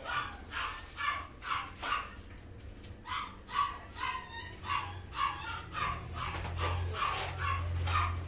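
A pet animal giving a quick series of short, high-pitched calls, about two a second, with a pause of about a second partway through.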